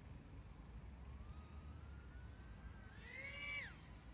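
Faint whine of a small FPV quadcopter's 1407 brushless motors. The pitch climbs slowly, then jumps up sharply about three seconds in and drops steeply just before the end as the throttle rises and is cut.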